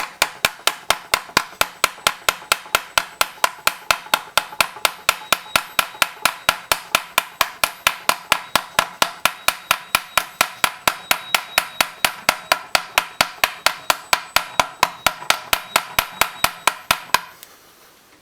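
Light hammer tapping rapidly and evenly, about five blows a second, peening over the end of a copper rivet to form its second head. The tapping stops briefly near the end.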